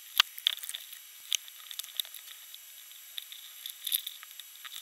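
Light clicks and taps of a soldering iron, wire and a small circuit board being handled on a wooden desk during soldering, with a faint steady high-pitched whine underneath. The sharpest click comes about a quarter second in.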